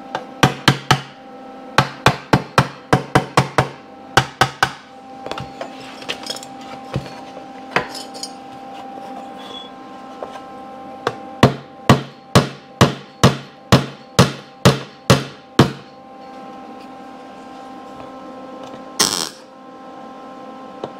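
Hammer blows on a sheet-steel motorcycle seat pan, reshaping the metal: sharp metal clanks in two runs, the second a steady series of about three blows a second. A brief crackling burst of MIG welding comes near the end.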